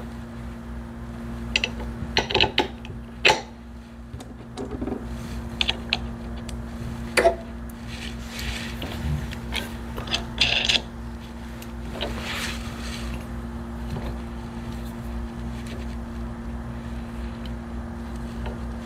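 Steel bolts and nuts clinking and scraping as they are picked up and fitted to pillow block bearing mounts on a steel locomotive truck frame: a scatter of sharp clicks, mostly in the first half, over a steady low hum.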